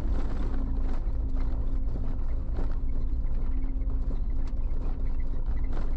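Vehicle driving over a rough dirt track: a steady low engine hum under dense tyre and road rumble, with irregular knocks and rattles as it jolts over the bumps.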